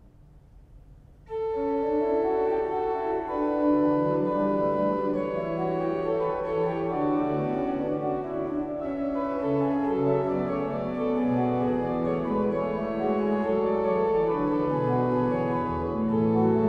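The Hinsz pipe organ (built 1776–1781): the last chord's reverberation dies away, then a little over a second in the organ starts the next chorale variation, several held voices moving over a lower part.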